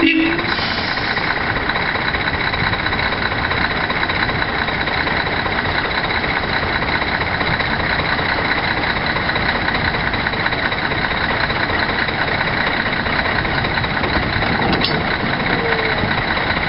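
Diesel engine of a Nanbu Jukan Railway railbus running steadily as it creeps up to another railbus to couple. A brief louder tone comes right at the start, and a sharp click comes near the end.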